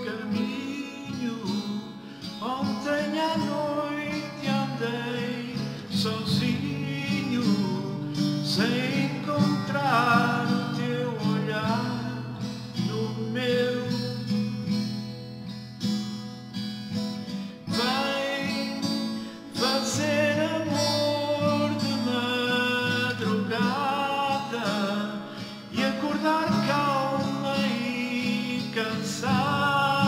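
A man singing a ballad in Portuguese, accompanied by his own acoustic guitar.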